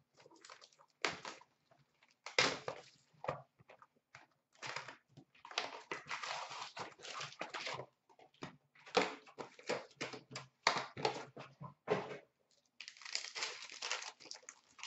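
Hands opening a trading-card box and its packs: plastic and pack wrappers crinkling and tearing in irregular bursts, with a few knocks of cardboard and cards, the longest tearing runs in the middle and near the end.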